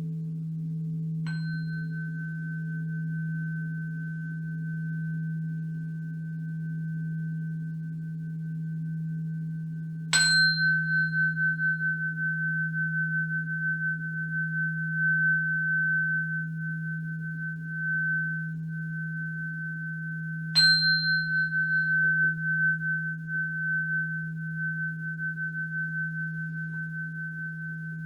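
A high, pure metal tone struck three times, about ten seconds apart, each strike ringing on steadily until the next. Under it runs a steady low humming tone from a sustained instrument.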